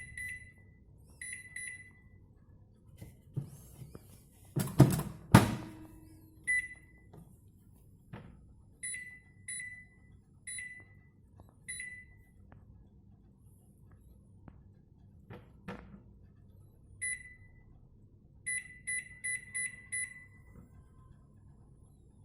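Microwave oven beeping: short, high single beeps at irregular intervals, then a quick run of five beeps near the end. Two loud clunks come about five seconds in, with a few fainter clicks between the beeps.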